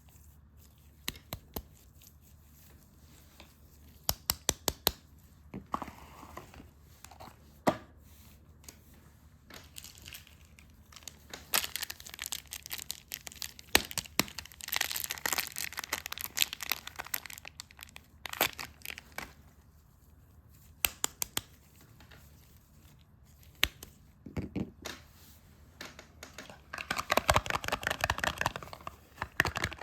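Soap wrapping being torn open and crinkled by hand, close up: scattered ticks and short bursts of crackling, turning into dense crinkling near the end.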